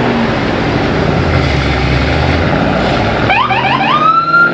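Classic Ford Mustang engines running as the cars pull away. About three seconds in, a police-style siren on the sheriff-liveried Mustang gives four or five quick rising chirps and then one longer rising wail that holds steady near the end.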